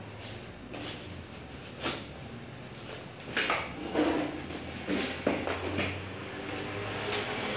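Handling noises from unboxing a lever-action rifle: scattered clicks, knocks and rattles of packaging and parts being moved, getting busier about three and a half seconds in.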